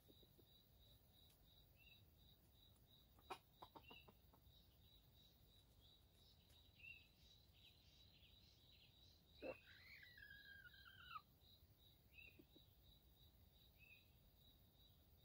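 A red junglefowl rooster crows once, about two-thirds of the way through: a short call of under two seconds that rises, then slowly falls and breaks off. Behind it a steady pulsing insect chorus runs throughout, with a few faint bird chirps and some brief clicks about three seconds in.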